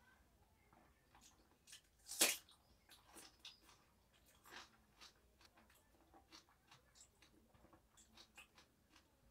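Close-up eating sounds of panta bhat (soaked rice) eaten by hand: soft wet chewing and mouth clicks in an irregular string, with one sharper, louder click about two seconds in.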